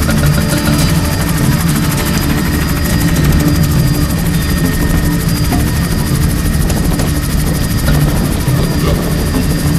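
Helicopter engine and rotor running steadily, heard from inside the cabin through the open door.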